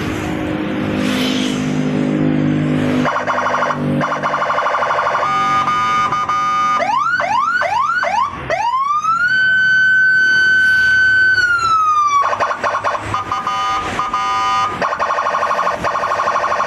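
Custom Senken police-escort (patwal) siren on a Suzuki Karimun sounding through its horn speaker, very loud. It opens with low stepping tones, then cycles through a fast pulsing warble, about four quick rising whoops, and one long wail that rises, holds and falls, then goes back to the fast warble.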